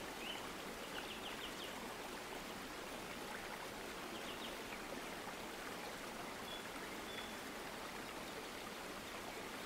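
Steady faint hiss, with a few faint computer-mouse clicks.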